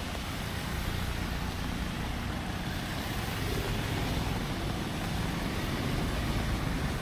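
Steady street noise in the rain: traffic running as a low rumble under an even hiss of rain.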